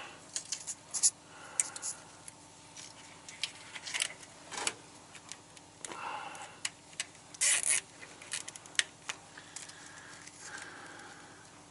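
Plastic zip ties being fastened around truck air lines: scattered short clicks and rubbing, with a few longer ratcheting rasps as ties are pulled tight.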